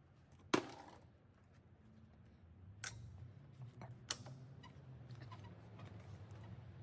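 Three sharp knocks: a loud one about half a second in with a brief ring, then two smaller ones near three and four seconds in. A faint low hum comes in partway through.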